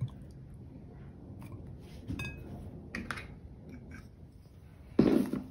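A few faint clicks of handling, then near the end two short, sharp clatters of utensils against a glass mixing bowl.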